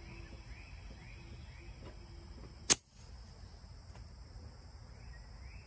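Insects chirping steadily, with a short chirp repeating about twice a second. One sharp click comes about halfway through.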